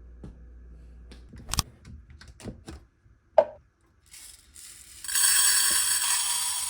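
Kitchen utensils clicking and knocking a few times, one sharp knock with a short ring, then loud, steady sizzling from a hot pan starting about five seconds in.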